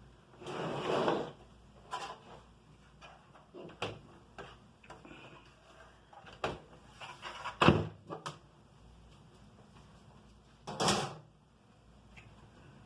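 Scattered clicks, knocks and rustling from handling computer-build parts, with a short rustle about a second in, the loudest knock about eight seconds in, and another brief rustle near the end.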